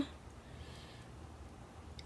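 Quiet room tone with a faint low hum; no distinct snaps or clicks of LEGO pieces are heard.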